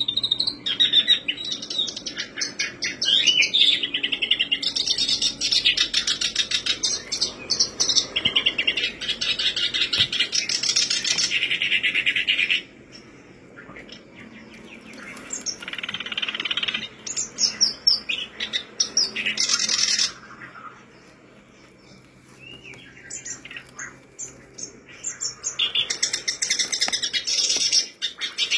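Black-browed reed warbler singing a fast, chattering song in bouts of several seconds, with short pauses between the bouts.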